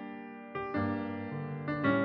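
Background piano music: soft sustained chords, with a new chord struck about half a second in and again near the end.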